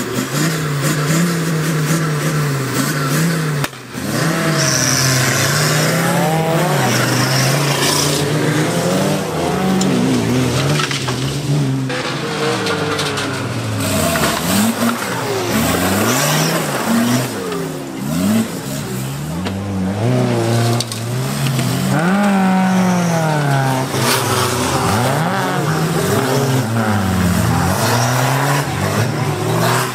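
Off-road 4x4 engines revving hard, the pitch rising and falling again and again as the throttle is worked, with more than one engine heard at once at times.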